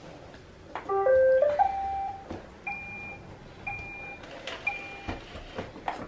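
Roomba robot vacuum playing a short electronic tune of stepped beeps about a second in, then beeping three more times about a second apart.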